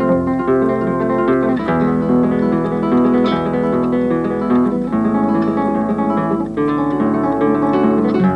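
Acoustic guitar music: a steady, unbroken run of plucked and strummed notes.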